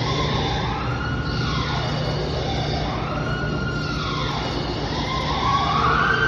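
A siren wailing, its pitch rising and falling about every two seconds, then climbing and holding high near the end, over a steady low hum.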